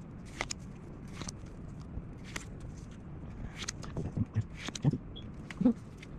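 Pokémon card packs and cards being handled: scattered light clicks and rustles of the foil wrappers and card stock. A few soft low bumps of handling come in the last couple of seconds.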